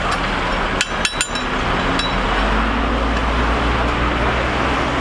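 Steady street-market background noise, with a quick cluster of sharp metallic clinks and taps about a second in and one more clink near two seconds.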